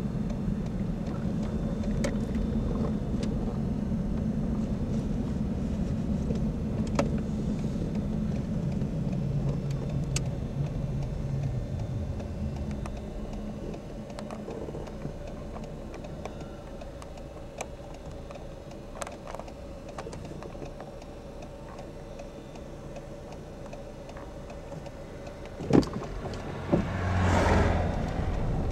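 Car engine and tyre noise heard from inside a moving car, dropping off about halfway through as the car slows down. Near the end a sharp click and a short whooshing swell.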